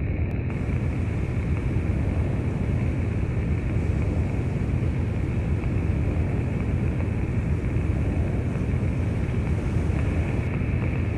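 Wind blowing on the microphone: a steady low rumbling noise.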